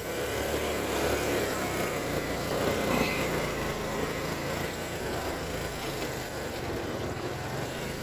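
ATV engine running steadily at low speed as the quad creeps down a steep, twisting dirt trail.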